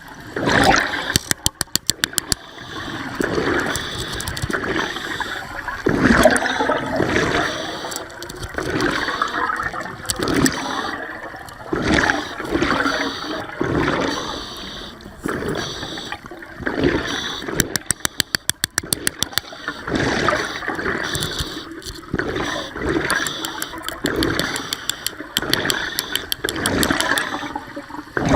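Water sloshing and gurgling around the camera in surges every second or two, with a few short runs of rapid clicking.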